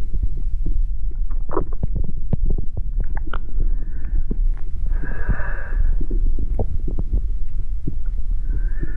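Experimental sound-art soundtrack: a steady deep rumble crowded with crackles and clicks, with short hissing swells about four and five seconds in.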